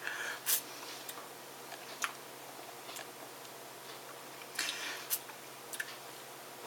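A man sipping and tasting beer from a glass: a few scattered short clicks and brief mouth noises, irregularly spaced, with a slightly longer slurp-like noise about two-thirds of the way through.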